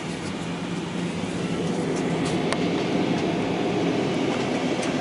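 Airliner cabin noise: the jet engines and airflow make a steady rushing noise with a low hum, which gets louder about a second in and holds there.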